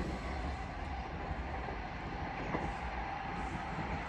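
West Midlands Railway Class 323 electric multiple units moving away from the platform: a steady rumble of wheels on rail with a steady high tone over it, easing off slightly near the end.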